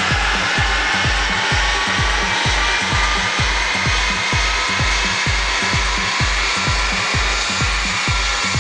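Background music with a steady beat, about three beats a second, over a loud steady rushing noise from a Mercedes CLS 350 CDI's V6 diesel and the dyno rollers during a run on a chassis dynamometer.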